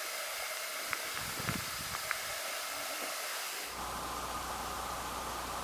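Steady background hiss with a few faint clicks. About two-thirds of the way in it switches abruptly to a different steady noise with a low hum underneath.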